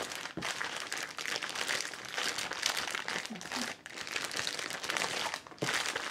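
Plastic zipper bag holding pork chops in soy sauce crinkling and rustling as it is kneaded and turned over by hand, working the marinade into the meat, with brief pauses in the handling.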